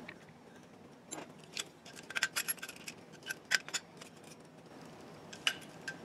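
Light metallic clicks and clinks of a wrench and air compressor pressure switch parts being handled: a scattered run of small taps between about one and four seconds in, and a few more near the end.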